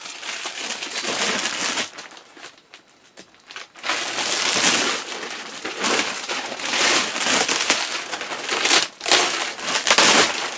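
Heavy plastic wrapping of a roll-packed mattress crinkling and rustling as it is handled and pulled off, in irregular surges. Quieter for a couple of seconds, then busy again.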